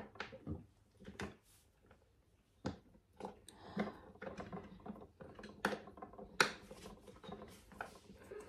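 Irregular light clicks and taps of small metal hardware, an Allen key and screw against an office chair's metal seat plate, as a screw is started by hand; the sharpest click comes about six and a half seconds in.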